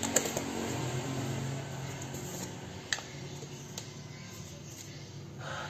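Plastic seasoning jars handled over a stainless steel mixing bowl: a few light clicks and taps, the sharpest about three seconds in, over a low steady background hum.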